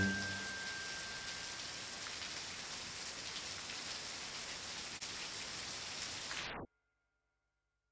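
Steady rain falling as a background ambience track. A lone high tone fades out over the first two seconds, and the rain cuts off suddenly about two-thirds of the way through.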